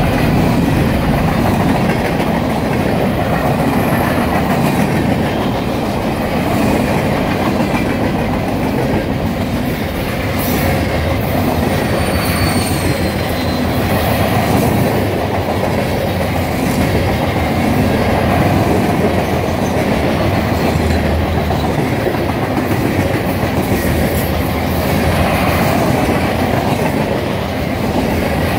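Cars of a CSX mixed freight train rolling past, a steady loud rumble of steel wheels on the rails.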